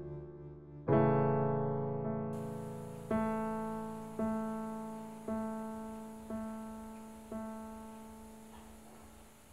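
Background piano music: a chord struck about a second in, then slow single notes about one a second, each left to fade.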